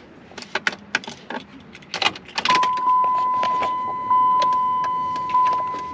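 Keys jangling and rattling at the truck, then a steady high electronic warning tone from the truck starts about two and a half seconds in and holds, with a few light clicks over it.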